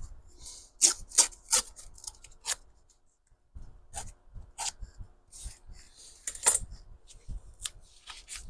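Paper pages being handled: a series of sharp, crisp clicks and short rustles, with a brief pause a little after the middle.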